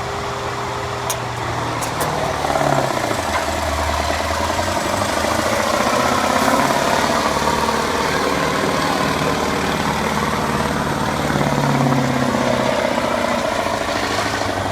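1989 Mack Superliner's V8 diesel engine working hard under load as the semi pulls the weight sled down the track, its note rising and getting louder about two seconds in and held through the pull.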